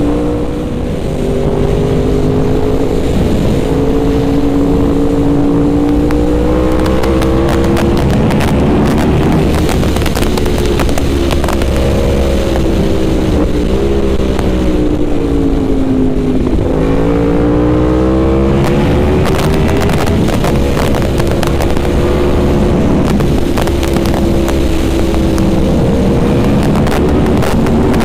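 Yamaha YZF-R1M's crossplane inline-four engine pulling hard, its note climbing steadily, dipping sharply about halfway through and then climbing again, under heavy wind rush on the microphone.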